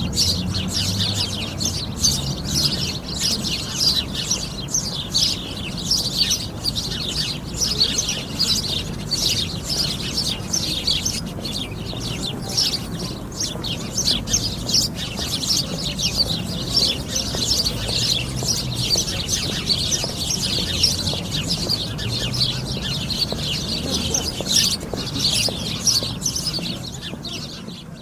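A flock of sparrows chirping continuously, with many short chirps overlapping.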